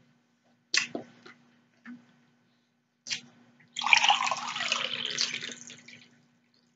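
A few light clicks, then water poured from a plastic bottle into a glass for about two seconds, with a pitch that falls as it pours.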